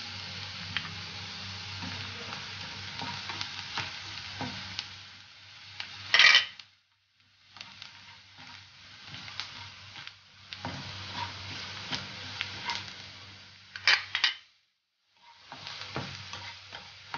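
Onions and curry leaves sizzling in hot coconut oil in a non-stick pan while a spatula stirs and scrapes through them, with red chilli powder stirred in. Two loud scrapes come about six and fourteen seconds in, and after each one the sound cuts out for about a second.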